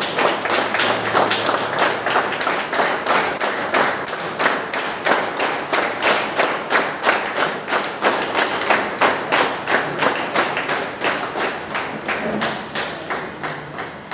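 Crowd clapping in unison to a steady beat, about two to three claps a second, gradually fading toward the end.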